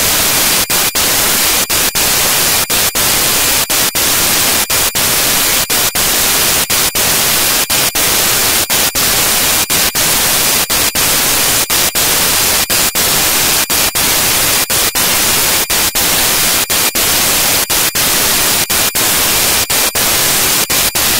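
Loud, steady static hiss spread evenly from low to high, broken by brief dropouts every half second or so. It fills the audio track in place of speech, the sign of corrupted or masked audio.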